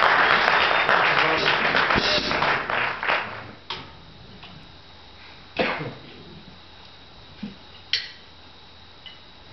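Audience noise, clapping and voices, fading out over the first three seconds or so. Then a quiet room with a few scattered short knocks and clicks, the loudest about halfway through.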